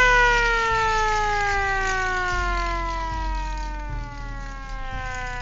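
A siren winding down, one pitched tone falling slowly and steadily in pitch as it fades.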